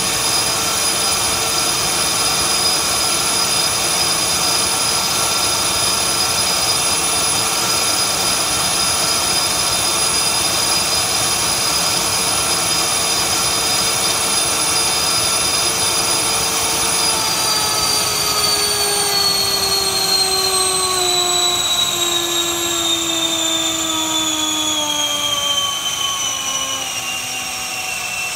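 Dynamax 127 mm electric ducted fan, driven by a TP-5850 700 kV brushless motor, running at high power at about 27,000 rpm with a loud, steady whine. About two-thirds of the way through it spools down, its pitch falling steadily as the throttle is eased back to about 15,000 rpm.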